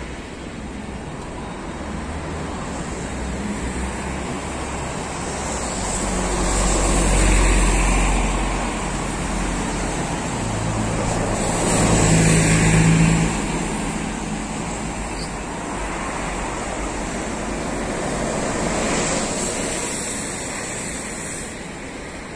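Buses and traffic: a steady rumble of road noise with bus engines swelling up twice, the louder with a low engine hum about halfway through.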